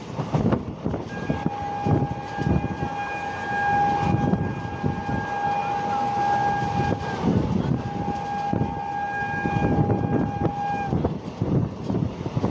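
Train horn sounding two long blasts on one steady note, the second following right after the first, over the rumble and rhythmic clatter of train wheels running on the rails.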